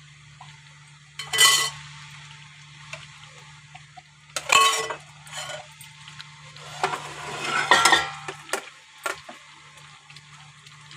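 A spoon stirring thick curry gravy in a pan, scraping and clinking against the pan in about five separate strokes over a faint steady low hum.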